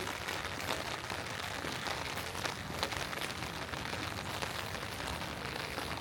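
Steady rain falling, an even hiss of rain with many close drops ticking on surfaces, one louder drop a little before the halfway point.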